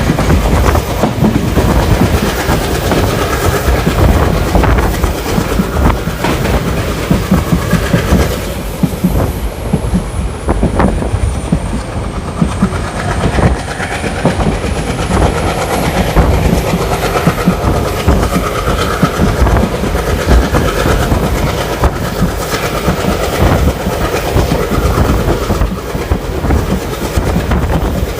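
Passenger train running on track, heard from inside a coach: a steady, loud wheel and rail rumble with the clickety-clack of the wheels over the rail joints.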